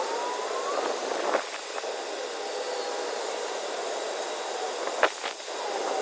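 Steady outdoor background noise, an even hiss with faint tones that rise and fall. About five seconds in come two sharp clicks, the first the loudest sound in the stretch.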